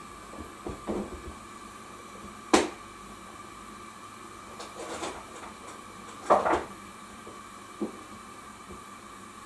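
A few sharp knocks and clinks from a glass-lidded steel pot of shijimi clams simmering on a gas stove: one about two and a half seconds in and a louder cluster about six seconds in, over a steady faint hum.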